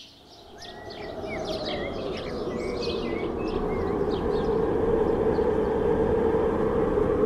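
Birds chirping for the first few seconds, fading out as a steady rushing rumble swells up and grows louder.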